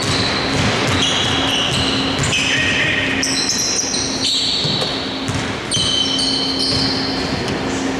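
Basketball shoes squeaking in short, high chirps on a hardwood court as players run and cut, with the ball bouncing during play. A steady low hum runs underneath.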